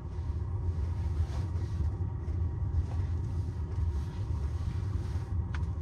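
A steady low rumble with no change in pitch, and a faint click about five and a half seconds in.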